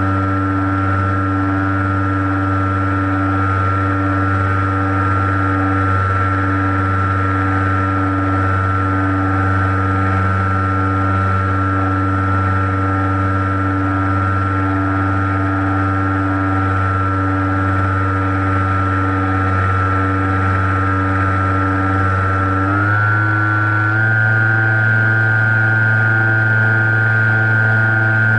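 RC airplane's motor and propeller running steadily at cruise, heard close up from the onboard camera, with a constant whine. Late on, its pitch steps up slightly and it gets a little louder as the motor speeds up.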